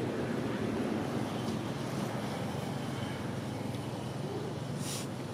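Steady low rumble of a motor running in the distance, with a brief hiss near the end.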